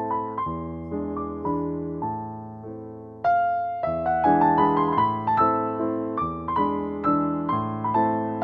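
Background piano music: notes and chords struck one after another, each ringing and fading. A quieter stretch ends with a loud new chord about three seconds in.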